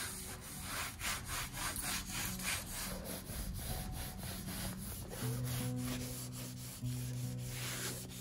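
Traditional Japanese baren, a bamboo-sheathed pad with coiled rope inside, rubbed in quick repeated strokes, about three a second, over the back of mulberry paper on an inked woodblock, hand-pressing a print from the ink left on the block.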